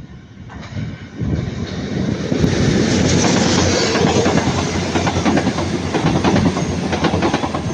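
Class 221 Super Voyager diesel-electric multiple unit passing close by, with rapid clicking of its wheels over the rail joints. The noise swells over the first two seconds, then stays loud.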